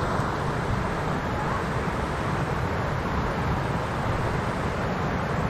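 Steady rush of a high, muddy forest stream pouring over a wide, low step of rapids.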